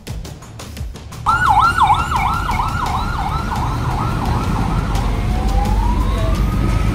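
Emergency vehicle siren starting about a second in with a rapid up-and-down yelp, about three or four sweeps a second, that fades and changes near the end into one slow rising wail, over the low rumble of highway traffic.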